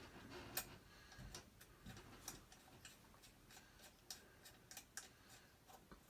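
Faint, irregular clicks and light taps as Hoover Junior vacuum cleaner parts are handled and a screw is tightened by hand.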